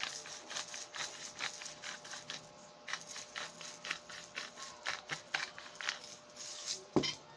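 Pepper shaker shaken in quick short strokes, about four a second, to season fish with ground pepper. A sharp knock comes near the end.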